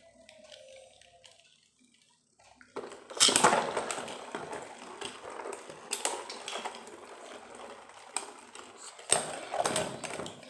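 Two Beyblade spinning tops, Bloody Lúinor and Infinite Achilles, whirring and clattering on a cardboard stadium floor. A loud clatter about three seconds in, as the second top lands, starts a stretch of rattling and repeated sharp knocks as the tops collide, with another loud clash near the end.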